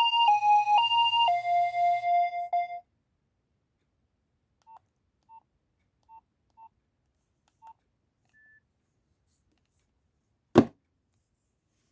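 Nokia 2300 ringtone playing a melody one note at a time in short pulsed beeps, ending about three seconds in. Five short quiet beeps follow, then a single sharp click near the end.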